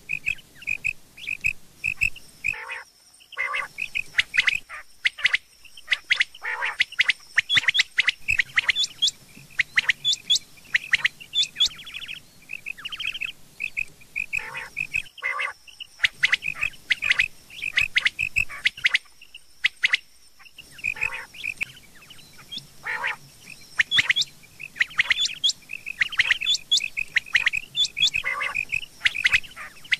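Rain quail calling: runs of sharp, quickly repeated notes, broken by short pauses, with a faint steady high buzz behind parts of it.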